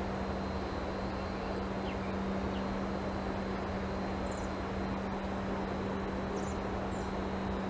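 Steady background noise with a constant low hum throughout, and a few faint, short high chirps. The muskrat's chewing is not picked out above the noise.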